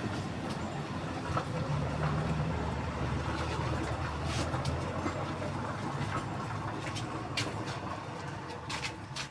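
Steady low rumble of a car, with a few sharp clicks in the second half, fading slightly near the end.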